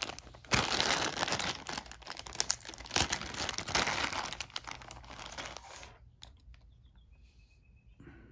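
A bag of miniature game figures crinkling and rustling as it is handled and opened, with a short tearing-like stretch. The crinkling stops about six seconds in.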